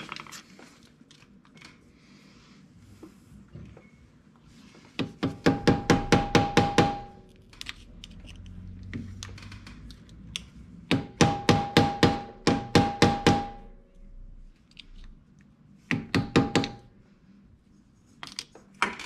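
Hammer tapping a screwdriver against the lock-washer tabs on a small ATV's clutch nut, bending the tabs out so the nut can come off. It comes in three quick runs of sharp metal strikes, about six a second, each with a short ringing note.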